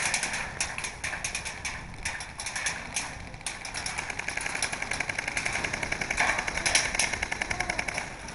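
Airsoft guns firing in rapid bursts of sharp clicking shots, with a fast, even run of shots in the second half.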